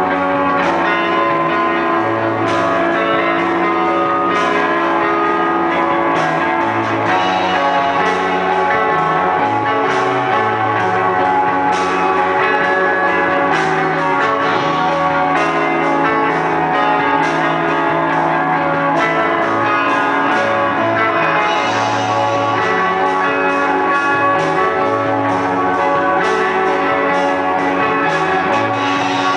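Live rock band playing loudly: electric guitars over a drum kit, with low notes changing beneath them.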